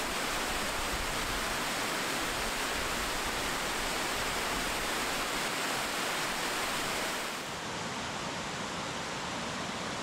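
Waterfall rushing: a steady, even noise of falling white water. About seven and a half seconds in it turns slightly quieter and duller.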